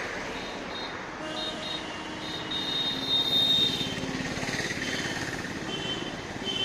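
Steady road-traffic noise, with a vehicle horn sounding briefly several times, longest about halfway through.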